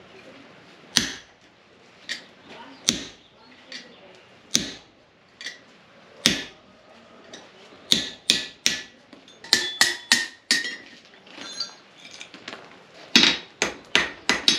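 Blacksmith's hammer striking heated iron on an anvil, with a metallic ring: spaced heavy blows alternating with lighter taps for the first half, then quicker runs of strikes, about three a second. The work is cutting the old rusted-on nuts off the heated iron piece.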